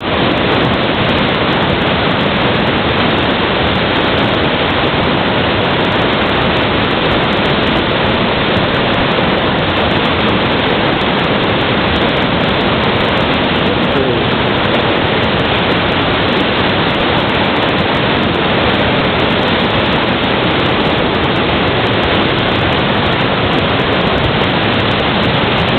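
Whitewater rapids rushing loudly and steadily over boulders in a river.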